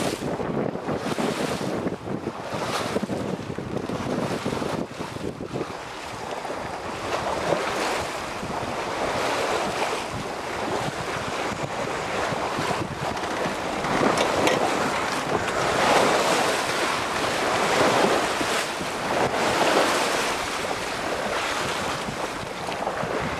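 Water rushing along the hull of a sailing yacht beating to windward under sail, with wind buffeting the microphone. The rush of water swells louder about every two seconds in the second half, as the boat meets the waves.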